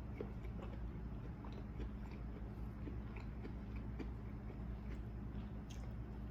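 A person chewing a mouthful of food close to the microphone, with soft scattered clicks and smacks, over a steady low hum.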